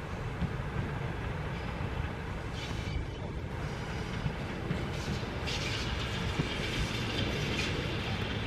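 SU42 diesel-electric locomotive running as it arrives with a passenger train, a steady low rumble of engine and rolling stock coming toward the listener; a higher hiss joins in over the second half.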